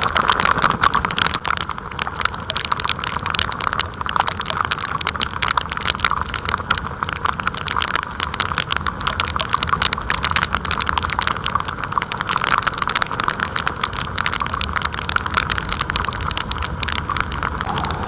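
Motorcycle riding noise picked up by an onboard camera: a steady rush with dense, rapid rattling clicks throughout.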